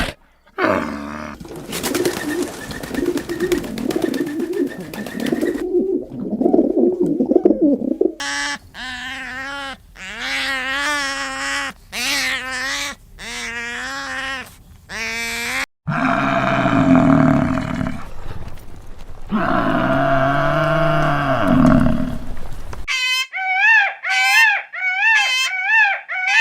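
A string of different animal calls played one after another: a rough low growling call, then a run of short repeated pitched calls, then longer calls, and rapid bird-like squawks near the end.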